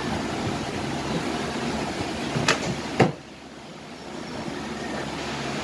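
Steady background hum with two sharp clicks about half a second apart near the middle, the second louder; after it the hum drops away and slowly comes back.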